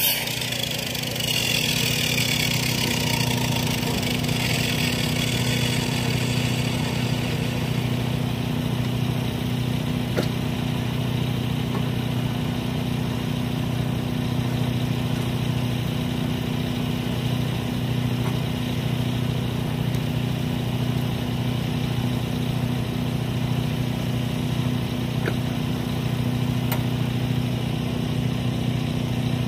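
Timbery band sawmill's small petrol engine idling steadily, left running between cuts. A falling high whine dies away in the first few seconds as the cut ends and the mill drops to idle.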